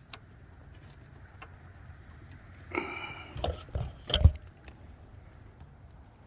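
Hands working a plastic wire connector and small tools during wiring: scattered light clicks, a brief squeak, then a few sharp knocks, the loudest about four seconds in.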